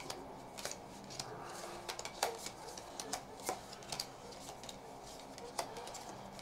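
Magic: The Gathering cards being sorted by hand and laid onto piles on a table: faint, irregular clicks and light slaps of card on card, about one or two a second.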